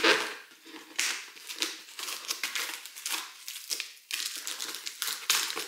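Clear plastic packing tape being peeled off a cardboard box in a series of short, irregular crackling pulls.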